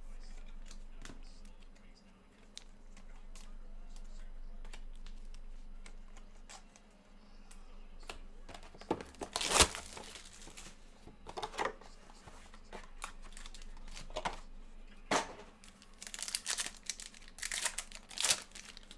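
Trading card packaging being torn open and crinkled: plastic and foil wrappers ripping and rustling in sharp bursts, loudest a little after halfway and again near the end.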